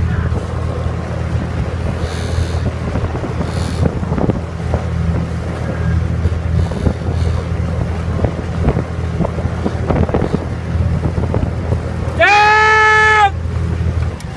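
Outboard motor of a following launch running steadily, with wind on the microphone and water slapping. About twelve seconds in, a horn sounds once for about a second, the loudest thing here.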